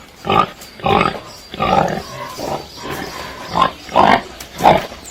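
Pig grunting: a string of about seven short, rough grunts.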